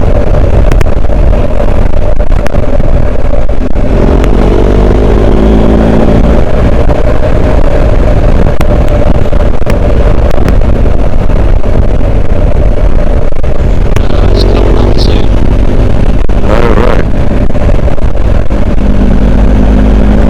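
BMW R1250GS Adventure's boxer-twin engine running under way off road, under heavy wind buffeting on the microphone. The engine note rises twice, about four seconds in and again near the end.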